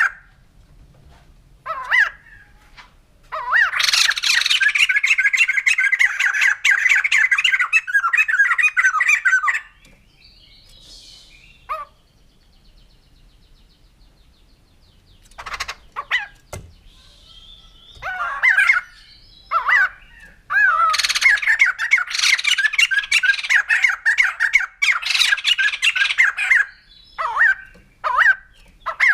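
White-crested laughingthrush giving its cackling, laughing song: two long bouts of rapid repeated notes, each about six seconds, with short single calls scattered between and after them.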